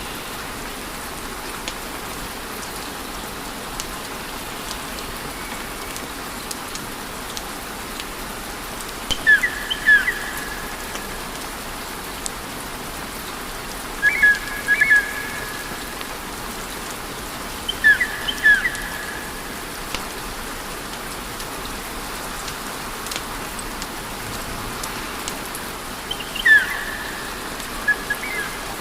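Wood fire crackling steadily, a constant hiss dotted with small sharp pops. Four times, short chirping whistles come and go over it.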